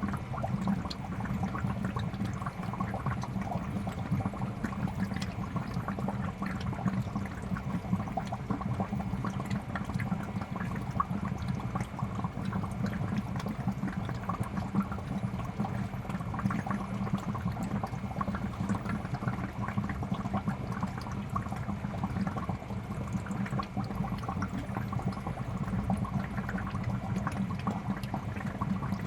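Fish tank water bubbling steadily, a dense, unbroken stream of small pops and trickles.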